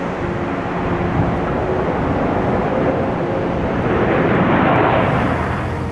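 Jet engine noise of a four-engine Boeing 747 landing: a steady rushing noise that grows louder to a peak about four to five seconds in, then eases off.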